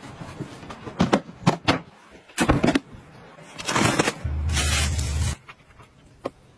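A few sharp knocks and clicks, then a cleaver blade slicing along the packing tape on a cardboard box with a rasping hiss, joined for about a second by a low steady hum; a single click near the end.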